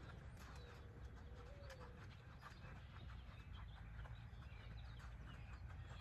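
Faint outdoor ambience: a low wind rumble with scattered short bird chirps.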